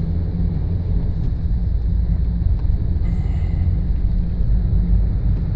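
Steady low rumble inside a moving vehicle's cab as it drives through several inches of snow on wide tyres: engine and tyre noise on the snow-covered road.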